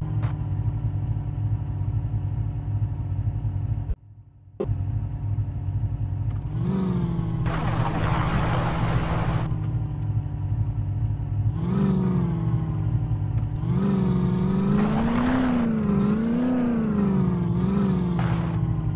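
Land Rover Defender's engine running and being revved, its pitch rising and falling several times, with bursts of heavier noise as it picks up. The sound cuts out briefly about four seconds in.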